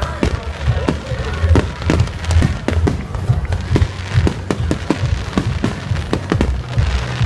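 Fireworks bursting in quick succession: many sharp bangs and crackles, several a second, over a deep rumble of booms, with music playing along.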